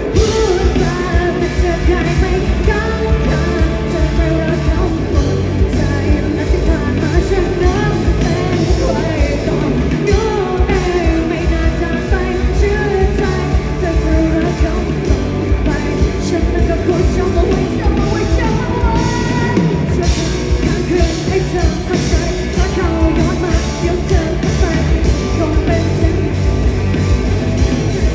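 Live rock band playing a song with a lead singer over a driving drumbeat.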